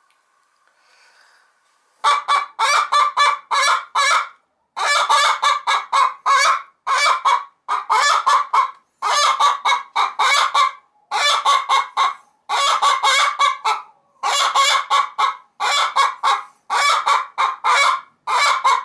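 A barred hen cackling loudly in quick runs of short calls, starting about two seconds in: the egg song a hen gives in the nest box around laying.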